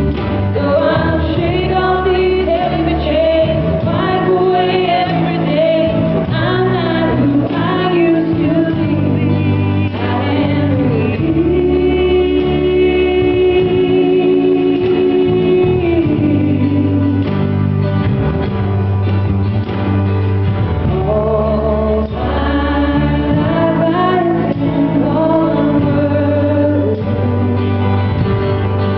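Gospel choir singing with instrumental accompaniment and a steady bass line, holding one long note about halfway through.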